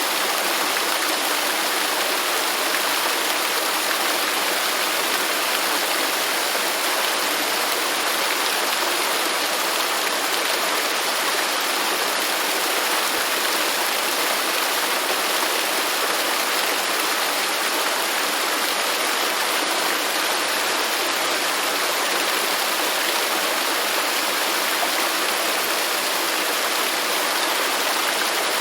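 Waterfall: a steady, unbroken rush of falling water, mostly a bright hiss with little deep rumble.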